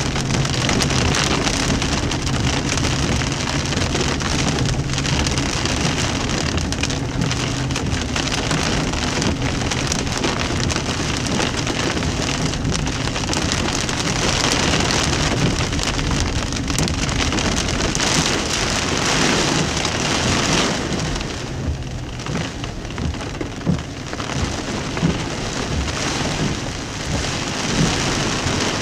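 Heavy rain drumming on a car's roof and windshield, heard from inside the car. About 21 seconds in the downpour eases a little, and separate heavy drops stand out as sharp hits.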